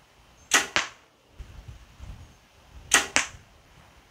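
Two arrow shots from a Mathews compound bow with field-tip arrows. Each shot is a sharp snap of the bowstring on release, followed about a quarter second later by a second crack as the arrow hits the target.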